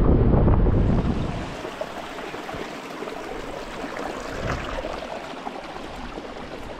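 A small moorland stream running: an even rushing hiss. Louder music fades out about a second in.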